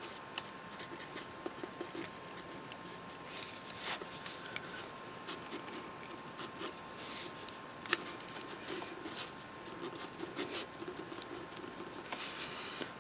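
Handwriting on lined spiral-notebook paper: the tip scratching softly across the page with small ticks as it touches down between strokes. There are two sharper clicks, about four seconds in and about eight seconds in.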